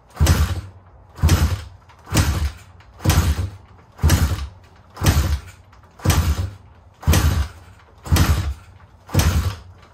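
Pit bike kick-starter kicked over about once a second, ten times in a row, each kick a loud clunk with a short rush of noise as the single-cylinder four-stroke engine is spun against a compression gauge screwed into the spark plug hole. This is a cranking compression test, so the engine does not fire.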